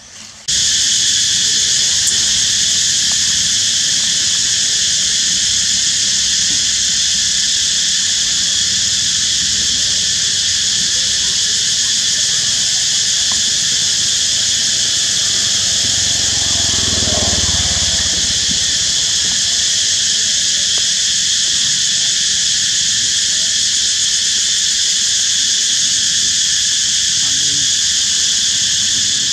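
Loud, steady chorus of cicadas, a shrill buzz that starts abruptly about half a second in. A low rumble swells and fades about two-thirds of the way through.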